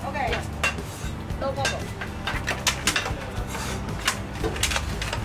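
Kitchen clatter: a string of sharp clicks and knocks as roast pork is pressed into a styrofoam takeaway box and the foam lid is shut, over background voices.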